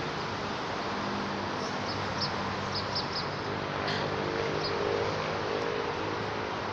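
Outdoor ambience: a steady hiss under a low engine hum, with a short run of high chirps about two to three seconds in.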